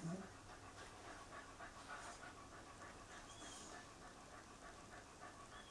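Puli dog panting, a faint, even rhythm of about four or five breaths a second, with a short low sound right at the start.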